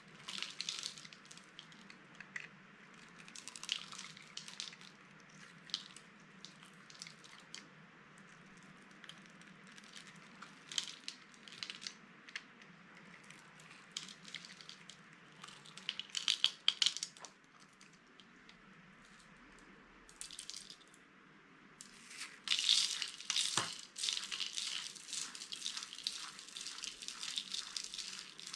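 Dry, watercolour-painted soap crunching as it is crushed: scattered crisp crunches, a burst of them about two-thirds of the way in, a short lull, then a dense run of crunching over the last several seconds.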